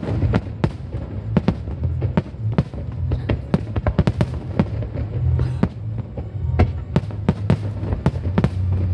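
Fireworks display: an irregular barrage of sharp bangs, roughly two or three a second, over a steady low rumble.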